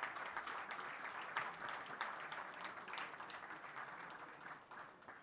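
Audience applauding, a dense patter of many hands clapping that thins out and fades near the end.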